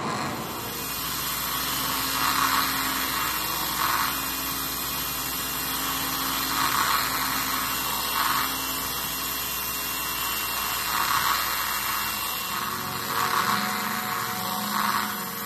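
Modified hard drive and electronics played as an improvised noise instrument: a steady electronic hiss and low hum, with short swells of whirring mechanical noise every few seconds. The low hum cuts out about three-quarters of the way through.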